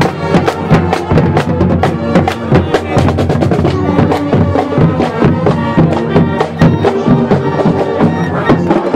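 Marching band playing as it marches past: brass instruments over a steady drumbeat.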